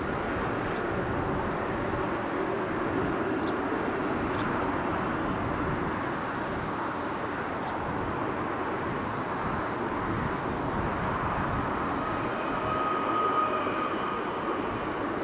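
Freight train of steel wagons and container platforms rolling past, a steady rushing rumble of wheels on rail, with a faint thin squeal near the end.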